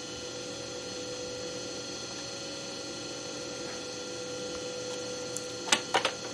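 Steady electrical hum made of several fixed tones, then three sharp clicks in quick succession near the end, from hardware being handled while battery wiring is taken apart.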